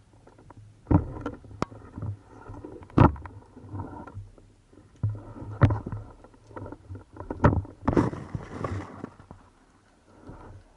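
Water sloshing and splashing, with sharp knocks about every second or two and a longer rush of splashing about eight seconds in.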